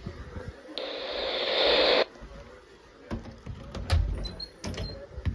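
A burst of radio static, a loud hiss lasting just over a second that swells and then cuts off sharply. Scattered light clicks and knocks follow, with faint short high beeps.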